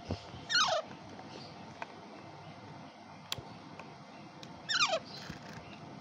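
Alexandrine parakeet chick squawking twice, each call a short, loud screech that falls steeply in pitch, about half a second in and again near the end. A single sharp click comes in between.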